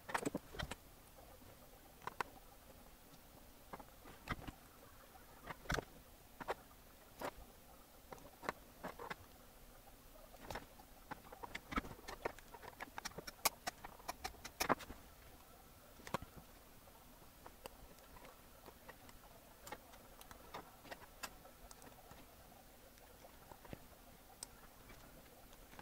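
Faint, irregular small clicks and ticks of a printed circuit board and its components being handled on a bench, with a quicker run of sharp snips in the middle as small side cutters trim the through-hole component leads.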